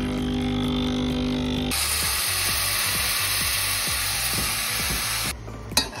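Breville Infuser espresso machine's pump humming steadily while the shot pours. About two seconds in it gives way abruptly to the steam wand hissing as it steams milk in a steel jug, with a click near the end.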